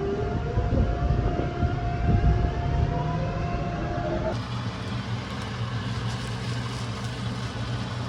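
A vehicle running, heard as a steady rumble with a rising whine in the first half. About halfway through it cuts to a steadier low hum.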